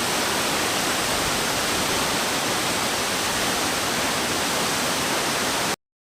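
Nugget Falls, a large waterfall, rushing as a steady, even wash of falling water that cuts off suddenly into dead silence near the end.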